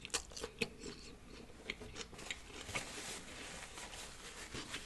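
Close-miked chewing of a birria pupusa: scattered soft mouth clicks and smacks, several in the first second, then sparser.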